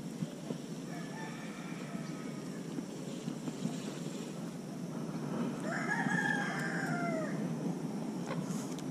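A rooster crowing: one long call about six seconds in that falls in pitch at its end, after fainter calls a second or two in.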